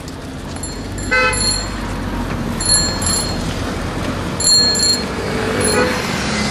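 Busy street noise of bicycles and traffic with a steady low rumble. A horn toots briefly about a second in, and bicycle bells give several short, high rings between about three and five seconds in.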